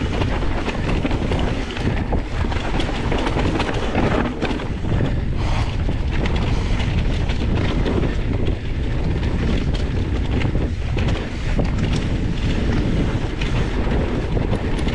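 Wind buffeting the microphone: a loud, steady rumble with no clear tones or distinct events.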